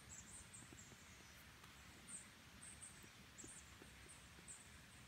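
Near silence, with an irregular series of faint, very high-pitched chirps: a small bird calling.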